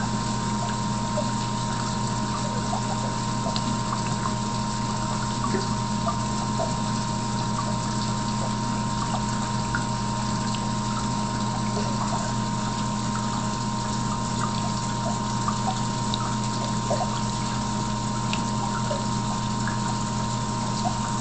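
Aquarium pump running: a steady low hum under continuous trickling water, with scattered faint ticks.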